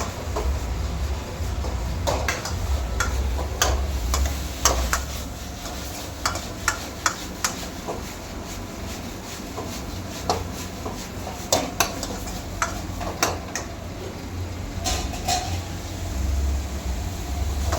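Metal utensils clinking and knocking against pots, pans and dishes in a kitchen, with sharp strikes scattered through and bunched in two runs, over a steady low rumble.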